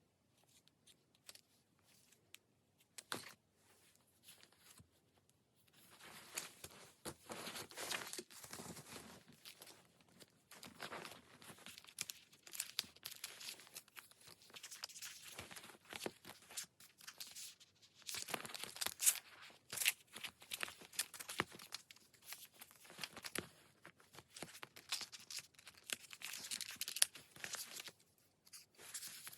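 Paper and sticker sheets rustling and crinkling as stickers are handled and peeled off. There are only a few scattered rustles and clicks for about the first six seconds, then near-continuous crackly rustling.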